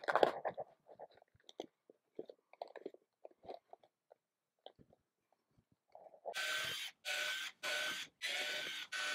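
Scattered light clicks and knocks as a plastic fan vent is handled and pressed into a wooden frame, then, about six seconds in, a cordless drill driving screws into the vent cover in several short bursts of steady motor whine with brief pauses between them.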